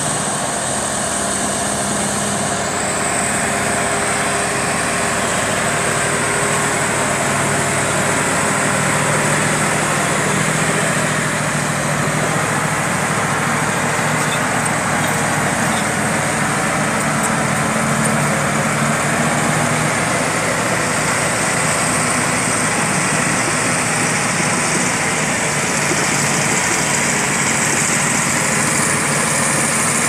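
Heavy diesel engines of a B10M crawler bulldozer and a heavy truck running steadily, loud and continuous, with slight shifts in engine pitch.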